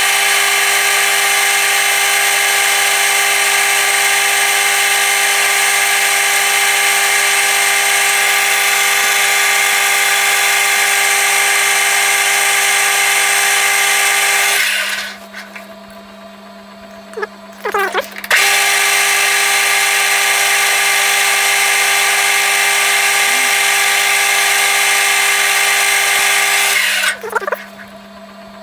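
Metal lathe cutting a spinning workpiece: a loud, steady cutting noise with a held tone, running for about fifteen seconds. It drops away for about three seconds while a low hum carries on, then runs again for about nine seconds and stops near the end.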